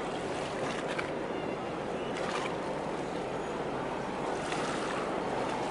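Steady rushing noise of a large Evergreen S-type container ship passing close by, its wash and machinery blending with wind and water into an even roar, with a few faint ticks.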